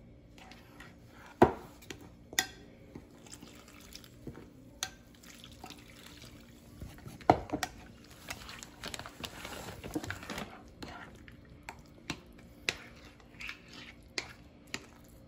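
Puttu flour being mixed by hand with lukewarm water in a glass bowl: soft wet squishing and rubbing, broken by a few sharp knocks on the bowl. About eight seconds in, more water is poured from a glass measuring jug, with dripping and splashing into the mix for a couple of seconds.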